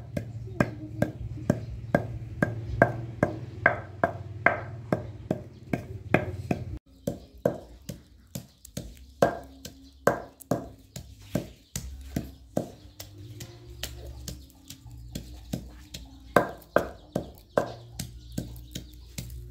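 Wooden pestle pounding in a wooden mortar: hollow, ringing knocks about two or three a second at first, then slower and uneven.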